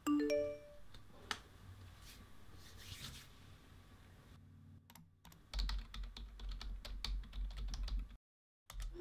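A phone message notification chime, three quick rising notes, at the start. Then typing on a laptop keyboard: a fast run of key clicks from about five and a half seconds in that stops suddenly near the end, followed by a brief rising tone.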